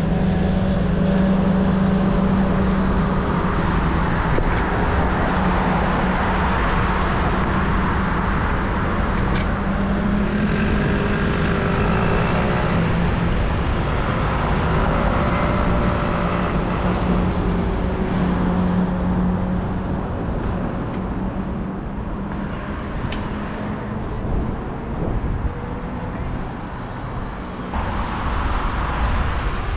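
City road traffic: a motor vehicle's engine hums steadily for most of the stretch, then fades as it moves off. Cars pass over a constant low rumble.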